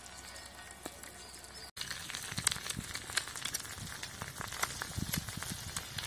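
Eggs frying in hot oil on a large flat griddle: a steady sizzle with scattered crackles and pops. After a brief break about two seconds in, the crackling gets busier.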